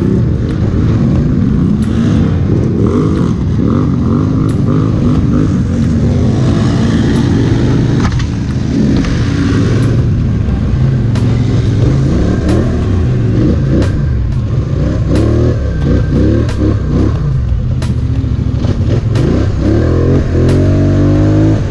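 ATV engines revving up and easing off over and over as the quads are ridden through mud and along a dirt trail, with scattered sharp knocks.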